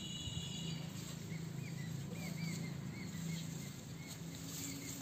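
A small bird chirping, a run of short curving notes two or three a second, starting about a second in, over a steady low rumble.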